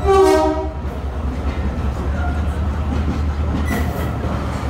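Class 68 diesel locomotive's Caterpillar V16 engine running with a steady, deep, pulsing drone, heard from the train it hauls, with wheels clicking over rail joints. A short, loud pitched tone sounds in the first second.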